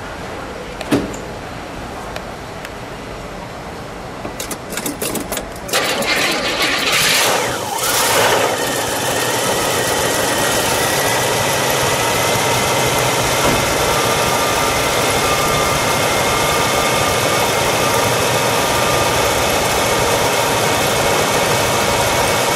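A 1975 Buick 350 cubic-inch V8 is cranked over briefly by the starter, about four to six seconds in. It catches and runs up, then settles into a steady idle that is a little high just after the start. A single knock comes about a second in.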